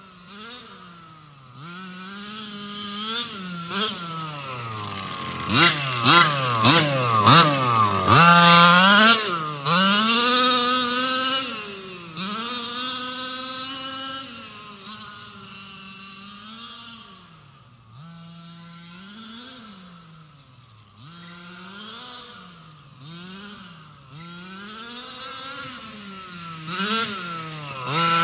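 Small engine of a Losi MTXL radio-controlled monster truck revving up and down again and again as the truck drives, with quick blips of the throttle and its loudest, highest revs about six to eleven seconds in.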